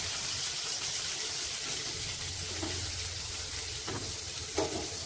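Chicken pieces frying in hot coconut oil in a pan, a steady sizzle, with a couple of light utensil taps near the end.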